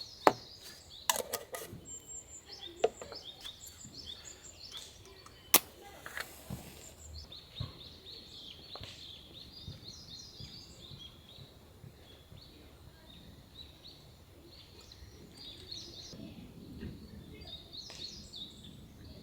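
Birds chirping repeatedly, with several sharp clicks and knocks in the first six seconds.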